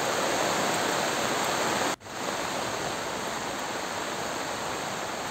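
Swollen river in flood, its muddy water rushing in a steady, even wash. The sound cuts out for an instant about two seconds in, then carries on.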